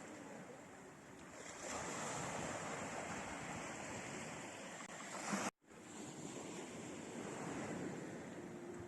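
Black Sea waves washing onto the shore: a steady rushing surf that swells a little over a second in. The sound cuts out abruptly for a split second a little past halfway, then carries on.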